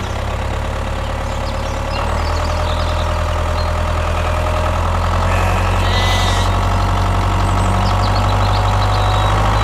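Mini tractor's engine running steadily under load while it drives a well-drilling rig, its low note strengthening a little about two seconds in.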